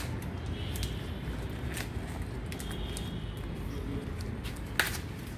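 Light rustling and scattered clicks from handling a freshly cut cauliflower head and its large leaves, over a low steady rumble. A sharp click comes at the very start and another near the end.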